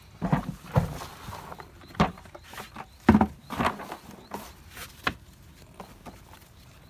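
Dry bread crusts being stirred and crushed by hand in a plastic basin, mixed into fishing bait: irregular crunching and rustling, the loudest crunch about three seconds in, thinning out near the end.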